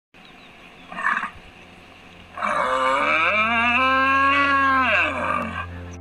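A cow mooing: a short call about a second in, then one long moo of about three seconds that drops in pitch at the end.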